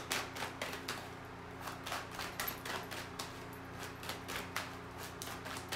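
Tarot cards being handled and shuffled: an irregular run of soft card taps and flicks, several a second, over a low steady hum.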